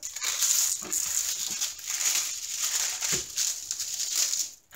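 Hands smoothing and pressing a diamond painting canvas flat under its clear plastic cover film, a continuous crinkling and rustling of the plastic that stops near the end.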